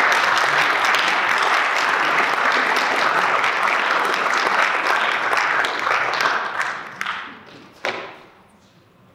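Audience applauding, a dense steady clapping for about six seconds that then dies away, with a last few single claps near the end.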